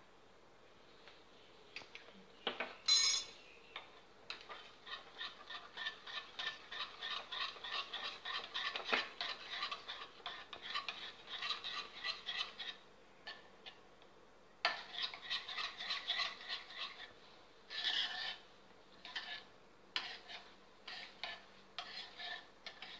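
Metal spoon stirring a thin milk mixture in a bowl, clinking and scraping rapidly against the bowl's sides, with one louder clink about three seconds in and a short pause past the middle.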